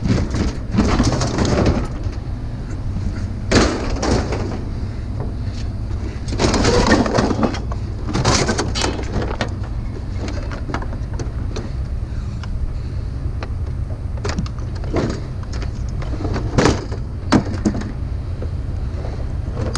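Scrap metal parts being handled and pried apart: irregular clanks, rattles and scrapes of metal pieces, with a cluster around the middle and a few sharp knocks near the end, over a steady low rumble.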